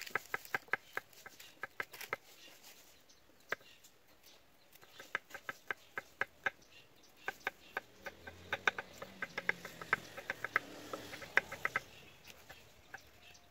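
Knife chopping garlic cloves on a wooden cutting board: quick runs of sharp taps with short pauses, busiest in the second half.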